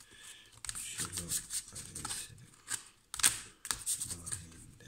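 A deck of oracle cards shuffled overhand by hand: quick papery riffling and clicking of cards sliding off the pack, in several short bursts.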